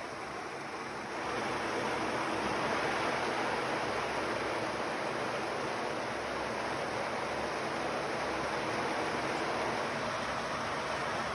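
Kadıoğlu 180ED walnut hulling machine running: walnuts churning against the bristles of its wet, water-fed drum make a steady rushing, watery noise that gets louder about a second in.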